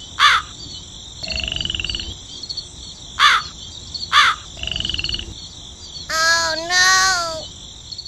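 Countryside ambience: a steady high chirring of insects, crows cawing three times, and frogs croaking in two short pulsed bursts. Near the end comes a two-part pitched call that bends up and then down.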